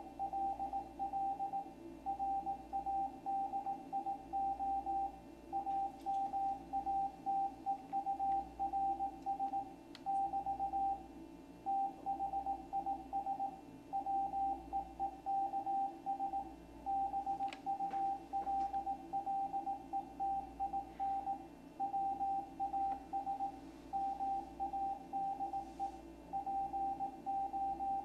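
Morse code (CW) from the ARRL's W1AW code bulletin, heard off the air through a shortwave receiver: one steady tone keyed on and off in dots and dashes, spelling out a bulletin to all radio amateurs. Steady receiver noise runs underneath.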